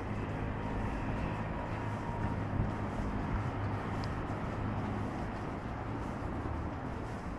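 Steady city street ambience: a low, even rumble of road traffic on a wide urban road.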